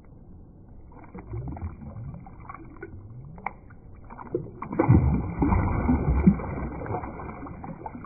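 Shallow water splashing and sloshing as a walleye is released by hand and thrashes off. The splashing is loudest from about five seconds in.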